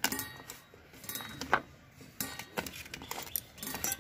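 Stainless steel bowl clinking and scraping as a hand works water into sattu (roasted gram flour) in it: several sharp clinks, each followed by brief metallic ringing.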